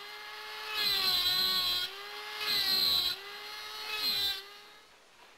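Small high-speed handheld rotary carving tool whining as it grinds into bone, getting louder twice as the bit bites into the piece, then fading out near the end.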